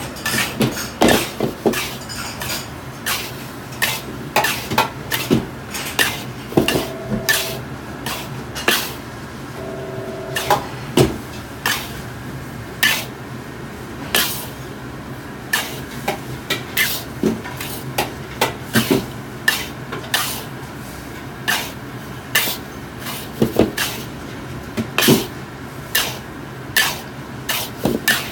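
Metal ladle scraping and knocking against a wok as salt and spices are stirred and dry-roasted, with irregular clanks about one or two a second. A steady low hum runs underneath.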